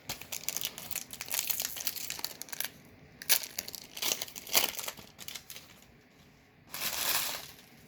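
Foil booster pack wrapper crinkling in the hands, many short crackles, with a longer ripping noise near the end as the pack is torn open.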